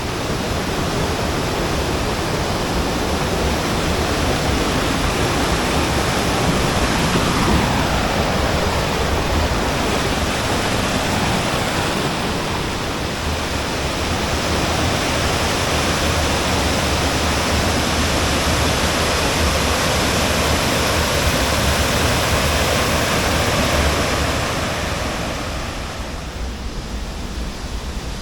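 Waterfall: a steady rush of falling water, easing off a little near the end.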